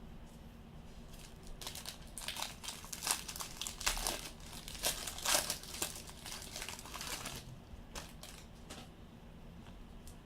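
Crinkling and rustling as a pack of baseball cards is handled, the cards leafed through and stacked. It starts about a second and a half in and fades by about three quarters of the way through.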